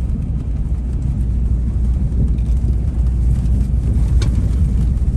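Ram Power Wagon pickup driving on soft beach sand while towing a trailer: a steady low rumble of engine, tyres and wind. A single brief click comes about four seconds in.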